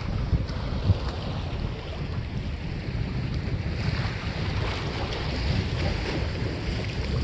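Wind buffeting the microphone in an irregular low rumble, over the steady wash of sea waves against the breakwater's granite blocks.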